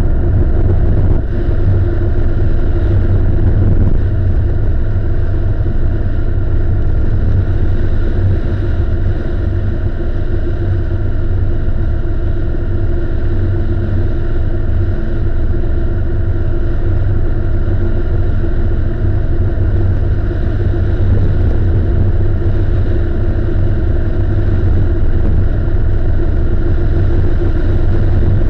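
Harley-Davidson V-twin engine running steadily at cruising speed, heard through a camera mounted on the bike.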